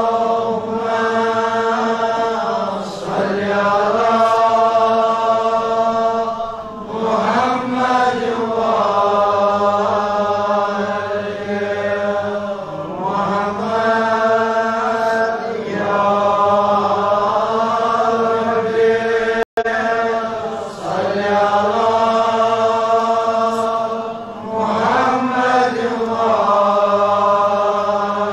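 A man chanting a prayer in long, held melodic phrases that pause briefly for breath every few seconds. The sound cuts out for an instant about two-thirds of the way through.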